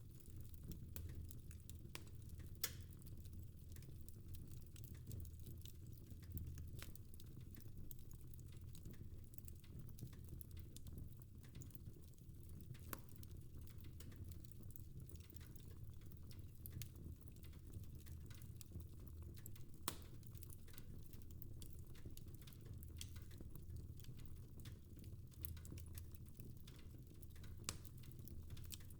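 Fireplace fire crackling faintly: scattered sharp pops and snaps over a low, steady rumble, with the sharpest pops a little under three seconds in and again about twenty seconds in.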